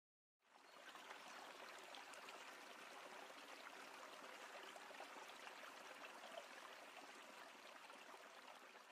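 Near silence: a faint steady hiss that begins about half a second in.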